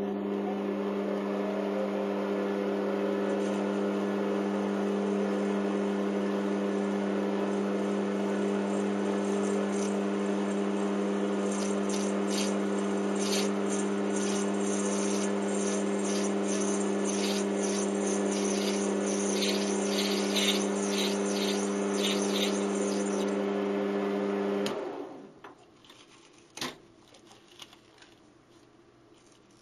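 Lathe running with a steady hum while the turning tool takes a light finishing cut on a spinning POM (acetal) plastic blank, adding a scratchy cutting hiss through the middle stretch. The lathe then switches off and the hum stops suddenly, about four-fifths of the way through.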